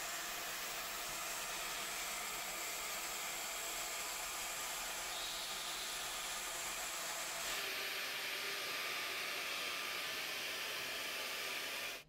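Dyson Gen5detect cordless stick vacuum running steadily with its crevice tool fitted: an even, high whir of motor and rushing air. The tone shifts and gets a little louder about seven and a half seconds in.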